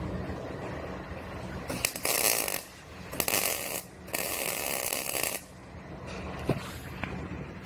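MIG welder arc crackling in three bursts as the new sheet-steel quarter panel extension is tack-welded on: two short ones, then a longer one of about a second. A steady low hum runs underneath.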